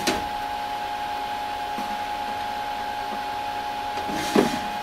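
Steady fan hum from running lab equipment, with a steady high tone in it. A click comes right at the start and a knock about four seconds in as the spectrophotometer's sample chamber lid is handled.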